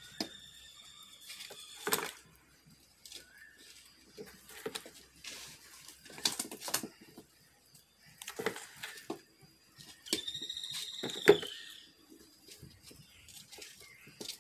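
Live fish flopping and slapping against a plastic basin and a cement pot as they are handled: a run of irregular wet slaps and knocks. A thin high tone sounds near the start and again, wavering, about ten seconds in.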